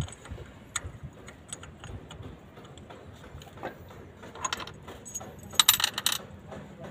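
Small metal parts and hand tools clinking during injector fitting. Scattered light clicks, a short run of clinks about four and a half seconds in, and a louder jangling rattle lasting about half a second near the end.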